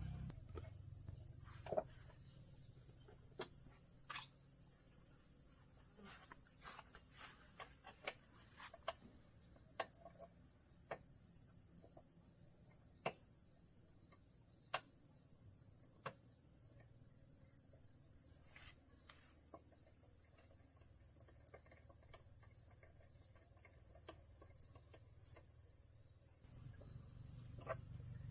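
Insects chirring steadily at a high pitch, with scattered sharp clicks or taps, about a dozen, mostly in the first half and one near the end.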